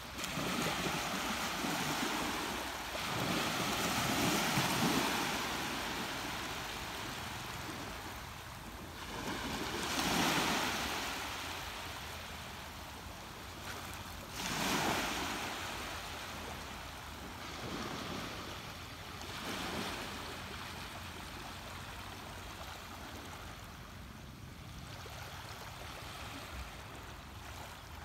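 Ocean waves breaking and washing in, a run of surges that each swell and fade over a few seconds, the biggest about ten and fifteen seconds in, growing gentler toward the end.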